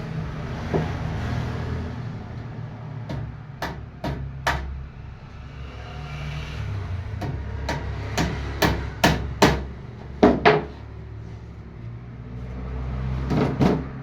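Hammer blows on wood in short irregular runs of a few strikes each, over a steady low hum in the background.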